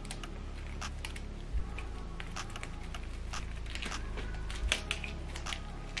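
Scattered light clicks and rustles of a power cable being handled and uncoiled, with a couple of soft thumps.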